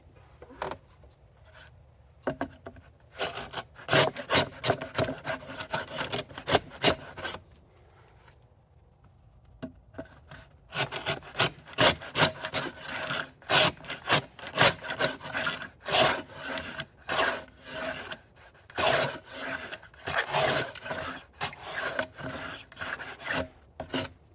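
A hand tool cutting wood in quick repeated short strokes, with a pause of about two seconds a little before the middle.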